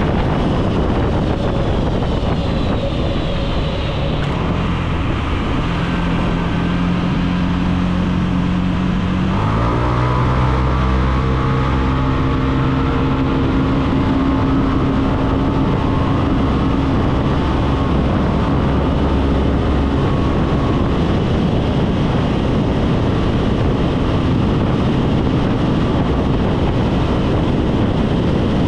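Wind rushing over the microphone on a Yamaha SMAX 155 scooter at speed, with its single-cylinder engine running as a steady note underneath. About a third of the way in, a stronger, steady engine note starts suddenly, holds for several seconds, then fades back into the wind.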